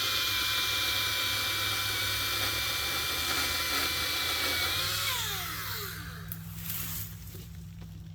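Hart 40-volt cordless chainsaw running at full speed with no load, a steady high electric whine. About five seconds in the trigger is let go and the motor and chain wind down, falling in pitch, followed by a few light clicks.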